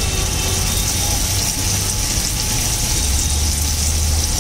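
Butter and green chutney sizzling on a large hot iron tawa, a steady hiss, over a constant low rumble.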